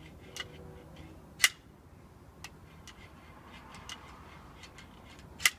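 A metal stapler striking the neck of a glass sparkling-wine bottle in an attempt to saber it open: two sharp strikes about four seconds apart, with lighter clicks between.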